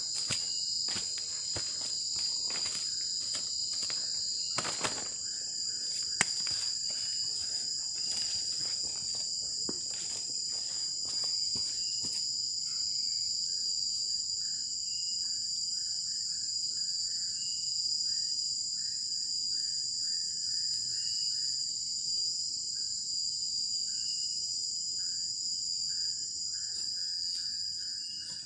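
Steady, high-pitched night chorus of crickets and other insects. Sharp clicks and knocks sound through the first dozen seconds, and a lower, repeated chirping comes in after that.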